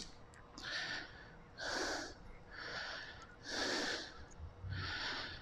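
Faint breathing close to the microphone: five soft breath sounds, in and out, about one a second.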